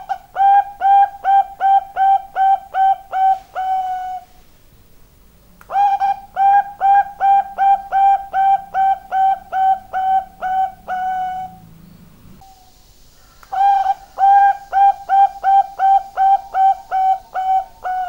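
Bangkok-type zebra dove (perkutut) singing: three phrases of rapid, staccato coos, about three notes a second, each phrase ending on a longer held note.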